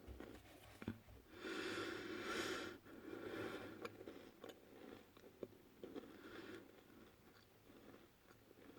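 Someone chewing crunchy spekulatius biscuits. The crunching comes in irregular bursts with small clicks, loudest about a second and a half to three and a half seconds in.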